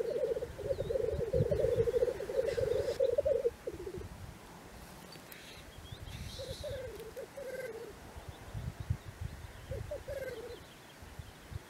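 Displaying male black grouse giving their bubbling, dove-like rookooing song: a continuous pulsing burble for the first three and a half seconds, then in shorter snatches twice later. A couple of short harsh hissing calls break in about two and a half and five seconds in.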